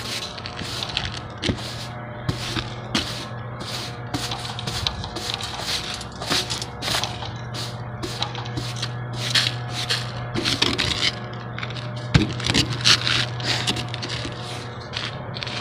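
Straw broom sweeping the granule-surfaced flat roof in short, scratchy strokes, about one or two a second, clearing the surface before it is patched. A steady low hum runs underneath.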